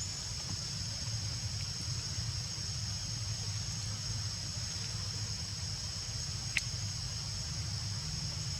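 Steady high-pitched drone of insects over a low rumble, with one short sharp chirp about six and a half seconds in.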